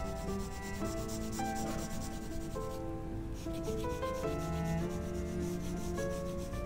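Graphite pencil scratching on drawing paper in quick back-and-forth shading strokes, darkening a tone. Soft background music of held notes plays underneath.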